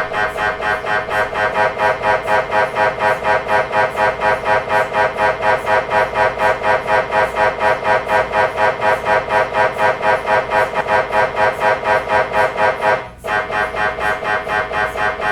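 MRI scanner's gradient coils running a scan sequence: a rapid, pitched mechanical buzz pulsing at about four beats a second. It breaks off for a moment near the end and resumes a little quieter.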